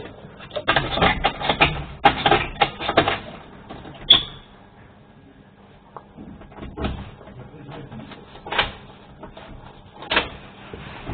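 Irregular clattering knocks and clicks: a dense run of strikes in the first three seconds, then single sharp knocks every second or two, one with a brief high ring about four seconds in.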